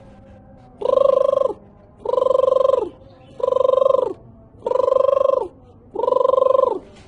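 A bird calling over and over at an even pace, about one call every 1.3 s: five alike calls, each a steady fluttering note a little over half a second long that drops in pitch as it ends.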